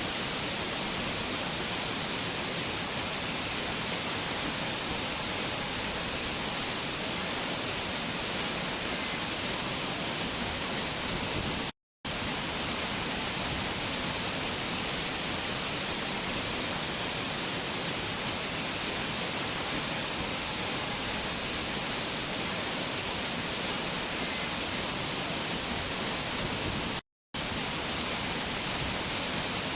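Waterfall rushing in a steady, dense roar of falling water, dropping out to silence for a split second twice.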